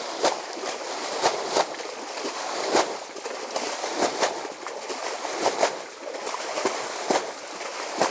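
Water being bailed by hand out of a dammed-off stream pool: irregular splashes and sloshes, one or two a second, over a steady wash of water. The pool is being drained to strand the fish.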